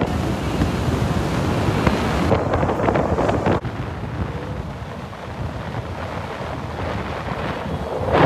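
Wind rushing over the microphone of a camera on the roof of a car moving at speed. About three and a half seconds in it cuts abruptly to a quieter, lower driving noise.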